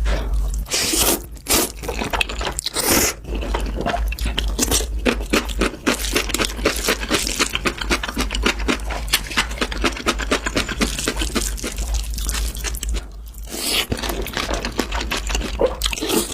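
Close-miked crunchy chewing of food, a dense run of rapid crackles and crunches with a brief lull about three-quarters of the way through.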